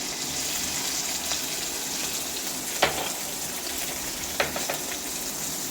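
Steady sizzling hiss of food frying in oil in a pan, with a sharp click about three seconds in and a few lighter clicks a little later.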